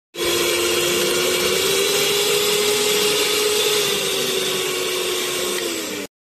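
Electric stand mixer motor running at speed, whisk turning in an empty stainless steel bowl: a steady motor whine over a hiss, dropping slightly in pitch just before it cuts off abruptly near the end.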